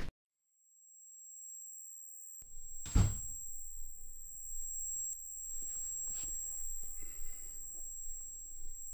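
A steady high-pitched ringing tone fades in out of silence, an ear-ringing effect for someone lying dazed after being knocked out. About three seconds in comes a single loud thud.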